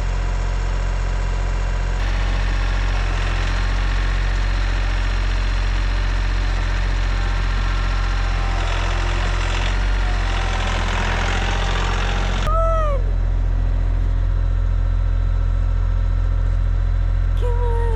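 Tractor engine running steadily at a low idle. Two short falling squeaks come near the end.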